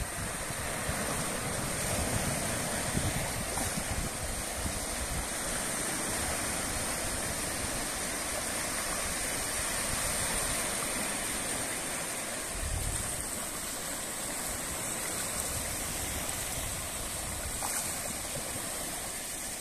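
Small waves washing in over a sandy beach: a steady wash of surf, with a few low rumbles of wind on the microphone.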